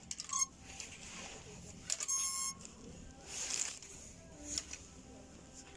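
Clothing-shop ambience: short rustles and light clicks near the phone, with a half-second buzzy electronic beep about two seconds in.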